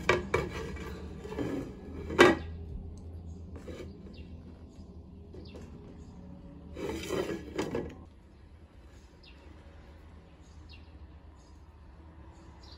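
Several short knocks and clatters of a child's plastic plate set down and moved on a wooden deck, the sharpest about two seconds in and another cluster around seven seconds, over a steady low hum.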